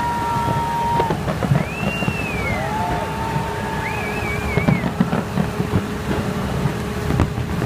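A big fireworks display going off: a continuous rumble of irregular bangs and crackles. Several high whistles rise, hold or waver above it for about a second each.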